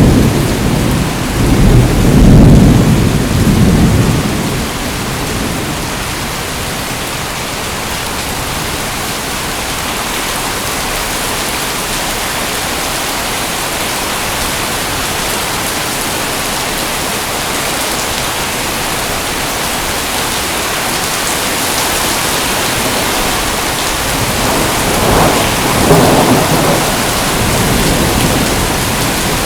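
Heavy rain falling steadily, with rolling thunder: a low rumble in the first few seconds and another near the end.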